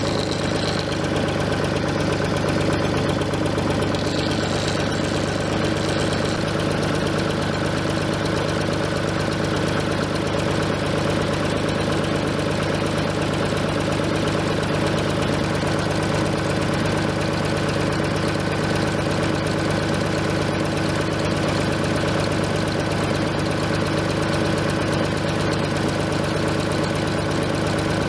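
Farm tractor's engine running steadily at an even speed while its front loader holds up a timber beam.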